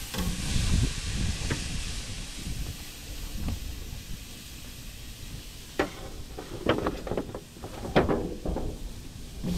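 Baby back ribs sizzling on a hot charcoal grill grate directly over the coals, with a steady hiss. In the second half comes a run of sharp clicks and knocks.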